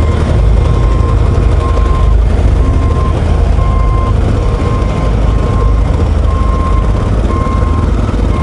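Back-up alarm on road-paving machinery beeping steadily, a little faster than once a second, over the steady low rumble of a moving motorcycle and wind.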